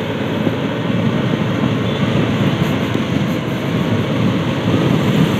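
Steady rush of wind and road noise from a moving vehicle, filling the microphone without a break.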